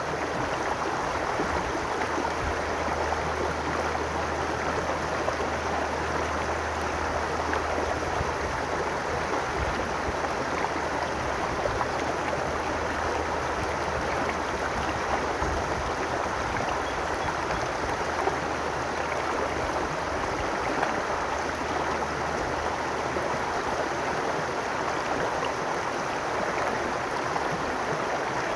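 Babbling brook: water running and gurgling in a steady, unbroken rush.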